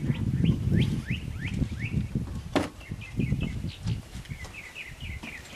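Small songbirds chirping, a running series of short rising and falling calls, over a low rumble. One sharp click about two and a half seconds in.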